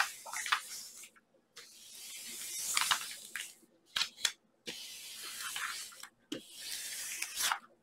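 Rustling of a diamond painting canvas's protective cover sheet as hands fold it back and slide over it, in about three long swells with short quiet gaps between.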